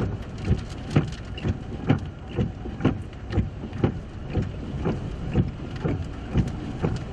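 Regular short thumps, about two a second, over a steady rushing noise of wind and rain.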